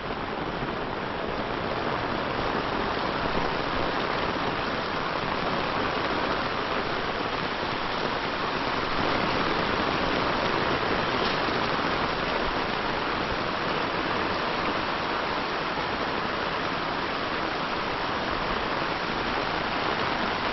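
Heavy rain pouring down, a dense, steady hiss of water falling on roofs and surfaces.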